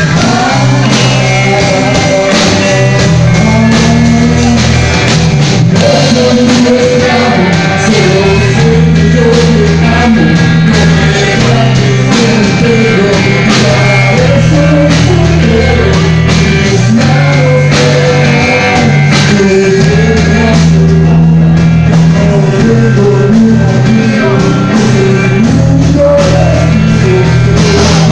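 A live rock band playing loud: electric guitars and a drum kit, with a man singing into a microphone.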